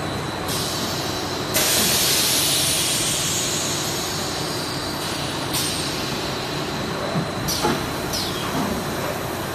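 JWZ-BM 12D blow molding machine running with a steady hum and a faint high whine. About one and a half seconds in, a loud hiss of compressed air starts suddenly and fades over several seconds. A few short clacks come near the end.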